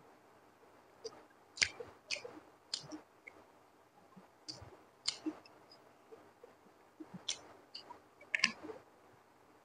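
Close-miked eating sounds: sparse soft, wet clicks and squishes at irregular intervals, from fingers working through fried rice and from the mouth chewing.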